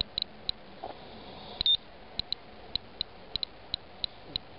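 Inspector Alert Geiger counter chirping at random, irregular intervals, about three short high clicks a second. Each click is one detected count of ionizing radiation, with the display reading about 100 counts per minute on rainwater residue.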